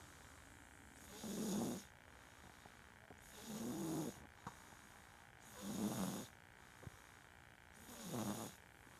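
Loud snoring in a slow, regular rhythm: four rasping snores, each under a second long, about two and a half seconds apart.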